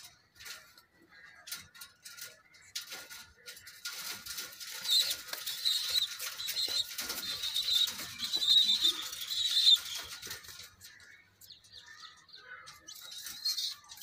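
White domestic pigeons flapping their wings in a flurry of rustling, beating feathers, building a few seconds in and dying down after about ten seconds, with scattered light clicks before and after.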